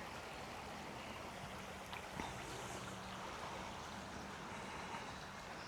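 Creek water flowing: a steady, faint rushing.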